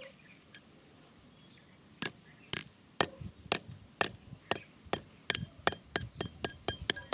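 Hammer tapping on metal: a first strike about two seconds in, then steady strikes about two a second that quicken to three or four a second near the end, the later ones leaving a short ring.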